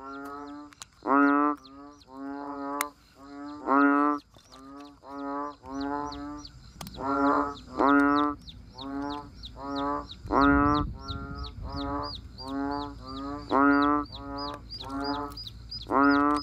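Repeated pitched animal calls, each about half a second long, coming one or two a second with a louder call every few seconds. A fast, high chirping joins them from about six seconds in.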